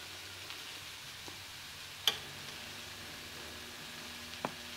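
Flour-coated diced chicken sizzling faintly as it browns in a skillet, a steady hiss, with one sharp click about two seconds in and a smaller tick near the end.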